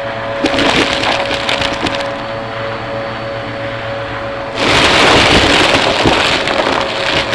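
Vacmaster vacuum cleaner running with a steady motor hum. Twice, dense crackling and rattling comes in as debris and powder are sucked up: briefly about half a second in, then louder from about four and a half seconds in.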